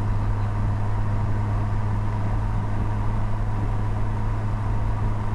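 Steady engine drone and road noise inside a car's cabin at a constant cruise, a low even hum that neither rises nor falls.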